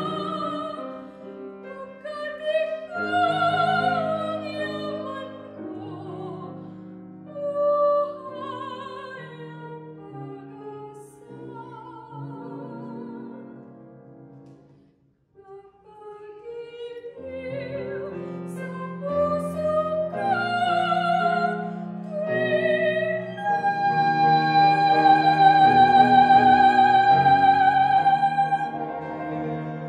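Classically trained soprano singing a Tagalog art song in full operatic voice with wide vibrato, accompanied by a grand piano. The voice nearly drops out for a moment about halfway, then builds to a long held high note near the end, the loudest part.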